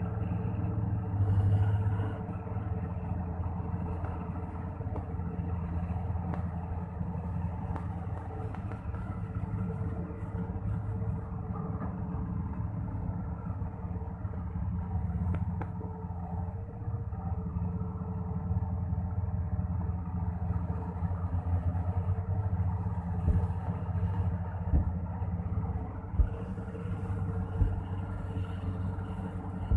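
Volvo EC480DL excavator's diesel engine running steadily, with a few sharp knocks in the second half.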